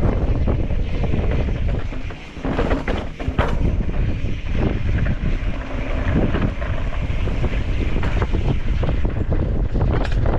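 Wind buffeting the microphone as a steady low rumble, with scattered short knocks and a brief drop in level about two seconds in.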